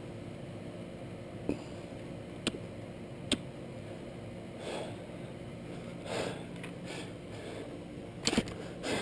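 A few sharp, separate clicks and soft scuffing or rustling over a low steady hum.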